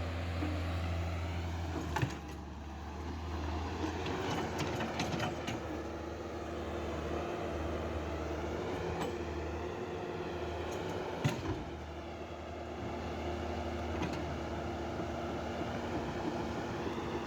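Small electric motors of Huina remote-control toy excavator and loader whirring steadily while they work, with a few sharp clicks and knocks, the loudest about two seconds in and about eleven seconds in.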